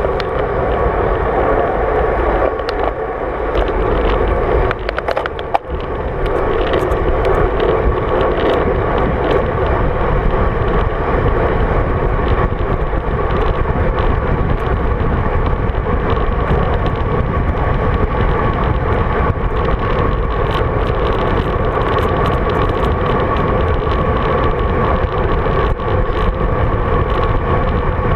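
Steady rush of wind buffeting a GoPro Hero 3 camera on a moving road bike, mixed with the tyres rolling on tarmac, with scattered faint ticks. The sound dips briefly about five seconds in.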